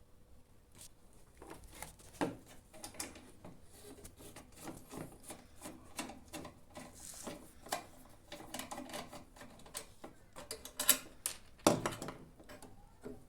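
Irregular clicks, taps and scrapes of hand tools and small parts on a microwave oven's metal chassis as the failed high-voltage diode is unfastened and pulled out, with a few sharper knocks about two seconds in and near the end.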